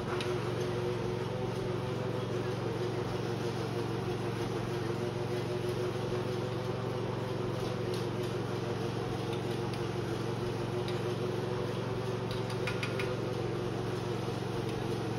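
Steady mechanical hum of an engine or motor running, with a few faint light clinks about two-thirds of the way through.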